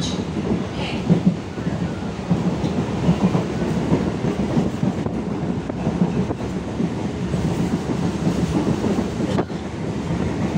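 ICF-built Medha EMU local train running along the track: a steady rumble of wheels on the rails.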